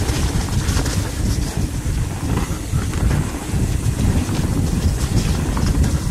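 Wind buffeting the microphone and tyres rolling over dirt singletrack as a mountain bike descends fast, with scattered clicks and rattles from the bike. The rear wheel is running flat, held up by its tyre insert.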